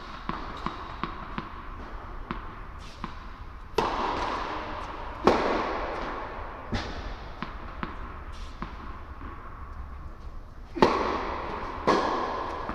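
Tennis ball bounced on an indoor hard court, light taps about two a second, then loud racket strikes of a rally starting about four seconds in, five hits in all, each ringing on in the echo of a large hall.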